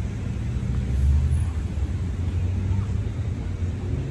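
Low, uneven rumble of outdoor background noise, with no distinct event standing out.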